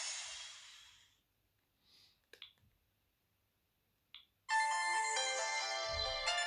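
Sony Ericsson W550i ringtone fading out, then two faint clicks. About four and a half seconds in, another polyphonic ringtone melody starts suddenly, with clear stepping notes.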